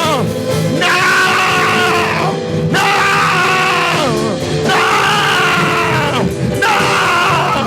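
Worship music with steady held keyboard chords, over which a voice cries out in long, drawn-out phrases about a second each, every one sliding down in pitch at its end, repeated over and over.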